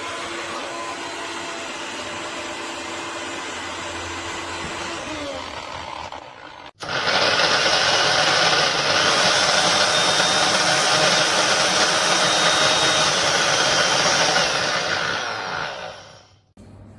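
Tefal Blendforce II jug blender's motor running steadily and winding down about six seconds in. After a sudden break it runs again, louder, for about nine seconds, then winds down near the end.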